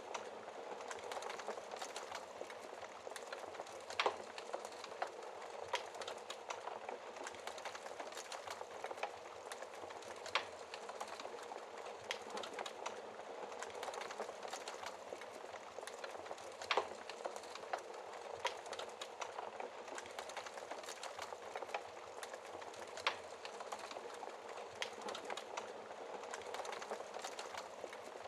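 Wood fire crackling in a fireplace: a steady hiss of small crackles, with a sharper, louder pop every six seconds or so.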